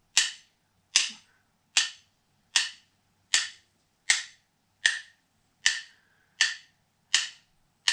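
A wooden spoon and a wooden stick tapped together as rhythm sticks, about ten sharp wooden clicks at a slow, even beat a little over one a second.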